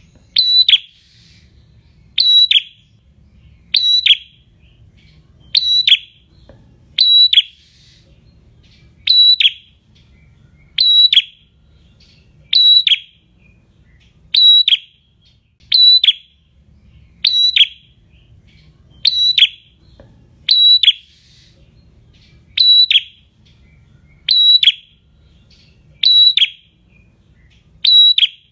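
Ashy tailorbird (prenjak semi) calling: a short, sharp high note repeated at a steady pace, about one every second and a half to two seconds.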